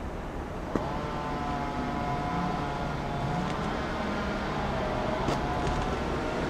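Motor vehicle running steadily over a low rumble, with a whining tone that starts just after a short click about a second in.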